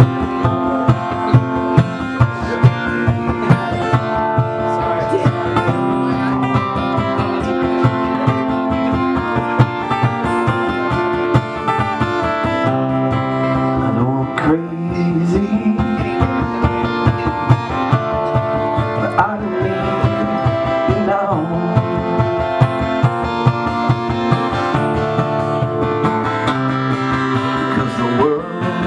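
Acoustic guitar with a capo, strummed in a steady rhythm.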